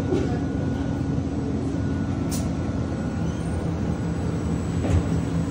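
Industrial laundry machines running in a large hall: a steady mechanical hum with a few constant tones, and a brief hiss about two seconds in.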